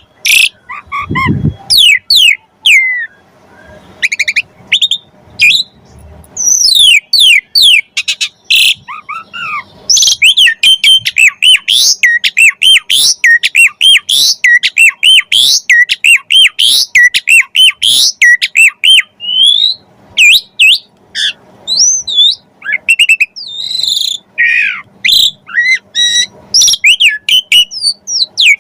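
Javan pied starling singing a long, varied song of quick whistles, chirps, trills and rising and falling sweeps, packed with mimicked phrases of other birds. A low harsh note comes about a second in, and from about ten seconds in the notes run densely in fast repeated chirps.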